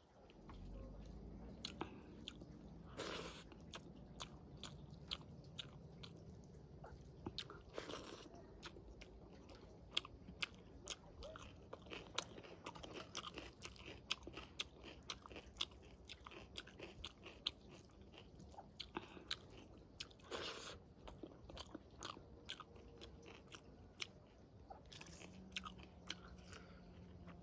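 A person chewing mouthfuls of rice, black dal and vegetables eaten by hand, with many short mouth clicks and a few louder bites.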